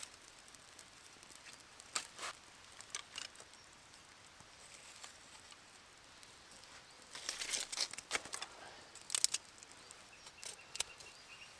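Small fire of birch bark and bracken crackling faintly with scattered pops and rustles. There is a busier patch of crackling about seven seconds in and a sharp snap about nine seconds in.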